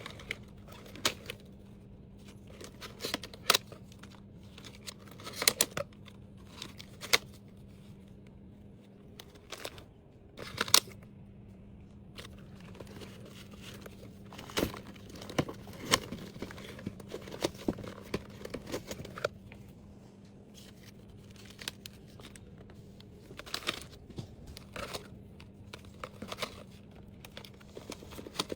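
Small items in plastic packaging being handled and packed: crinkling and rustling with scattered sharp clicks, over a faint steady hum.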